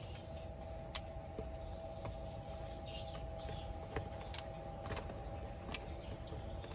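Scattered light clicks and taps of cookware and food being handled while a pot is filled, over a faint steady hum.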